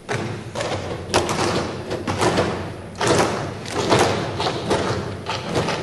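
Members thumping their wooden desks in a parliament chamber as a show of support: a dense, irregular patter of knocks that swells in waves about once a second, echoing in the large hall.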